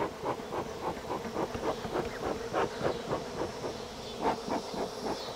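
Honey bees buzzing around an opened hive in a steady hum, broken by many short hissing puffs from a bee smoker being worked to drive robber bees off.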